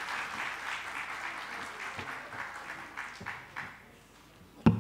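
Audience applauding, the clapping dying away about four seconds in. Near the end a single sharp thump sounds as the podium microphone is handled.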